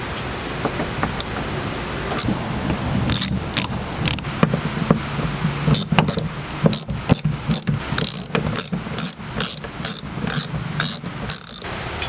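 Ratchet handle with a Torx bit clicking as the door-hinge bolts are backed out. The clicks come scattered at first, then as a steady run of about three a second through the second half.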